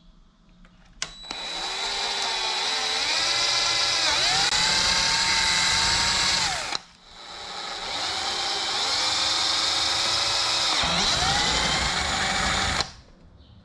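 Power drill boring a hole through a mini Jeep's front grille, run in two long bursts of about six seconds with a brief stop between; the motor's pitch dips and recovers as the bit bites.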